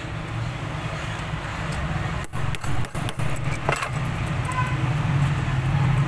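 Steady low traffic rumble, with a few light metallic clinks from small metal parts and hand tools being handled.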